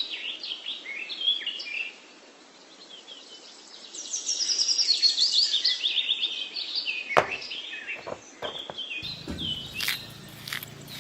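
Small birds chirping and singing, with a run of quick descending notes about four seconds in and a few sharp clicks near the end.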